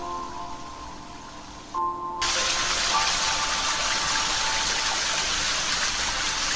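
Soft acoustic guitar music with a light rain-like hiss beneath it. About two seconds in, loud rushing water cuts in abruptly and continues, while the music goes on quieter underneath.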